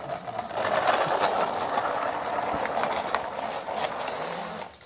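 Plastic toy dump truck's wheels rolling over rough concrete as it is pushed by hand: a steady gritty rolling rumble with small clicks that stops near the end.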